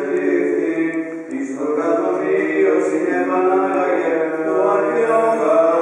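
Greek Orthodox Byzantine chant of a memorial service, sung unaccompanied by male voices in long held, slowly moving notes.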